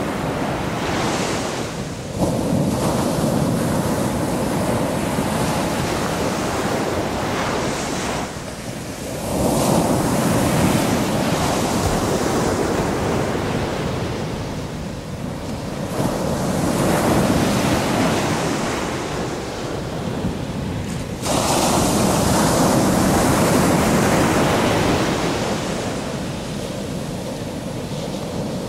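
Ocean surf: waves breaking and washing over the shallows in a steady noise that swells and falls in several long surges, jumping up sharply about two, nine and twenty-one seconds in.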